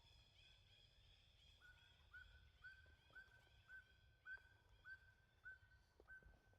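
Faint bird calls: short, evenly repeated chirps about two a second, in two series at different pitches. The lower series joins about two seconds in, and the higher one drops out before the end.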